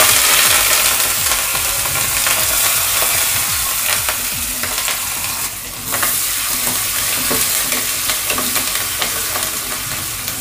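Fresh curry leaves sizzling in hot oil in a metal kadai, in a tempering with mustard seeds, dals, garlic and dried red chillies, stirred with a metal spoon that ticks and scrapes against the pan. The sizzle is loudest at the start, just after the leaves go in, dips briefly about halfway, and slowly eases off.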